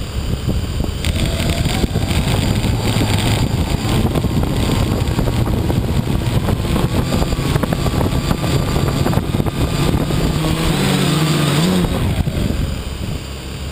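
Quadcopter's electric motors and propellers spinning up about a second in, a whine that rises and holds, with prop wash buffeting the on-board microphone. The motors wind down near the end.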